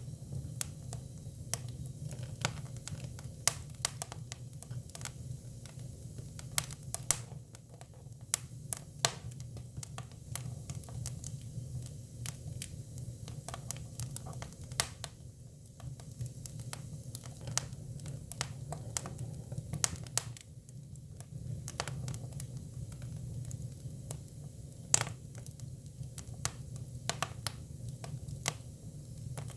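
Hinoki cypress firewood burning: irregular sharp crackles and pops over a low steady rumble of the fire.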